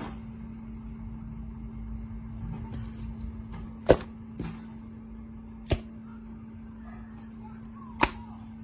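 Clear slime being worked by hand, with three sharp clicks as it is pressed and squished, over a steady low hum.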